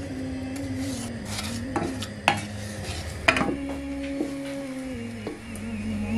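A wooden spoon stirring jaggery as it melts into syrup in a stainless steel saucepan, scraping the pan, with several sharp knocks of the spoon against its side.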